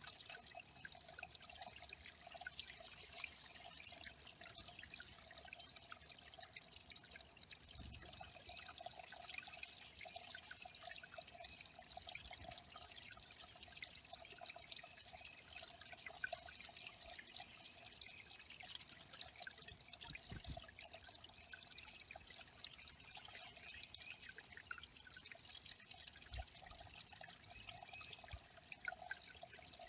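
Water trickling and dripping steadily into a small pond, faint.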